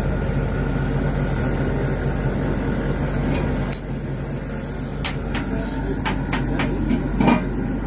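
A steady low hum and hiss from a flaming burger grill. From about halfway there is a run of sharp metal clicks and taps, a steel spatula against the grill grates, with the loudest near the end.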